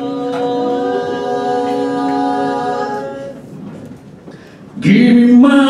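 An a cappella vocal group builds a sustained chord, voices entering one after another on held notes. The chord fades about three seconds in, and near the end the full group comes in loudly with the song.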